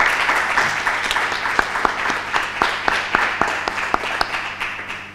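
Audience applause: many people clapping at once, starting suddenly and dying away near the end, with some single loud claps standing out.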